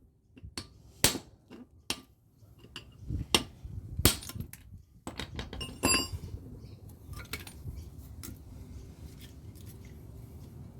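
Hammer blows on a small air-conditioner transformer being broken apart for its copper windings: several sharp, irregular strikes in the first six seconds, then lighter clinks and knocks.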